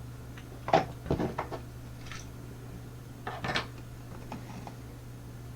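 Small metal tools and lock parts clinking and clattering as they are picked up and moved off the work surface, in a few short bursts of clicks about a second in and again past three seconds, over a faint steady hum.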